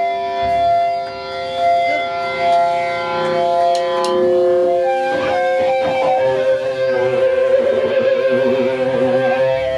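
Distorted electric guitar through an amplifier, holding long ringing notes. From about six seconds in, the notes waver and bend.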